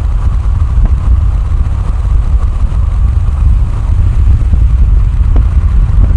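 Steady low rumble of a car on the move, heard from inside, with a faint steady hum higher up.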